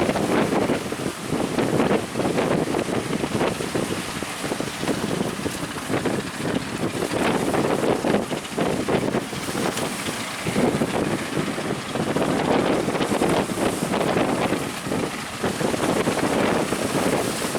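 Strong wind buffeting the microphone in gusts, a loud rushing noise that swells and eases every few seconds.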